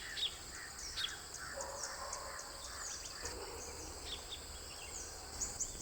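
Faint forest ambience: insects calling steadily at two high pitches, with scattered short bird chirps and calls over it.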